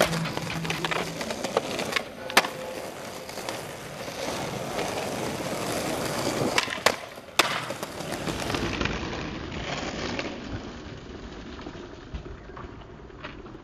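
Skateboard wheels rolling over concrete and granite pavement, with a few sharp clacks of the board striking the ground, once about two seconds in and in a quick cluster of three about seven seconds in.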